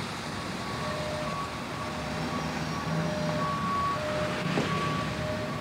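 City street traffic: a steady rumble of passing vehicles, with two steady tones at different pitches sounding by turns. A single short click comes about four and a half seconds in.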